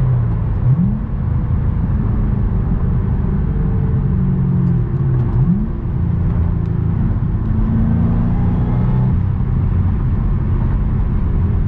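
Supercharged 4.6-litre V8 of a 2008 Ford Mustang Roush Stage 3, heard from inside the cabin, during two downshifts of its five-speed manual gearbox. The engine pitch jumps sharply upward about a second in and again about five and a half seconds in, then the engine runs on steadily between and after the shifts.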